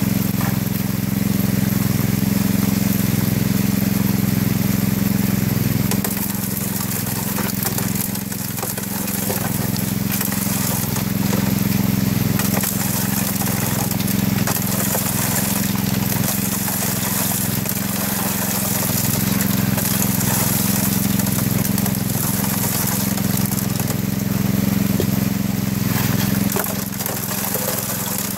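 Small engine-driven water pump running steadily, feeding a Gold Hog Mini sluice box through its hose, with water rushing down the sluice and splashing out of its end into the creek.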